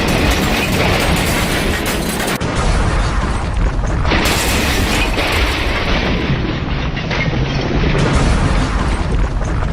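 A run of train crash sound effects: loud, dense crashing and booming. The sound changes abruptly about two and a half, four and eight seconds in as one clip cuts to the next.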